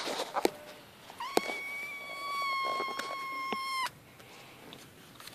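A hungry kitten giving one long meow held at a steady pitch for about two and a half seconds, starting about a second in: a cry for food. A few sharp clicks sound around it.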